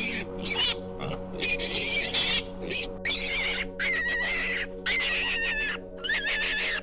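Piglet squealing in a run of short, high-pitched bursts with a wavering pitch.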